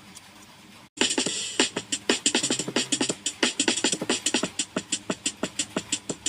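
Background music with a quick, even, beatbox-like percussive beat, starting about a second in after a brief dropout.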